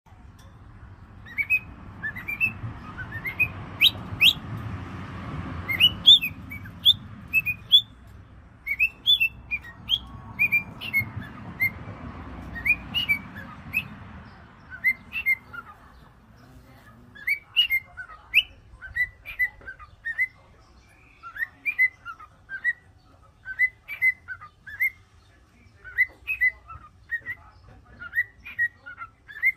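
Cockatiels chirping and whistling in a long run of short, sharp calls, about two a second. A low background noise underlies the first half and fades out about halfway through.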